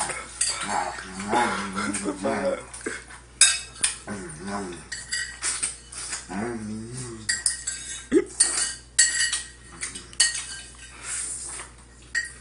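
Fork clinking and scraping against a plate while someone eats, in frequent sharp clicks. A few short, wavering wordless vocal sounds come in between.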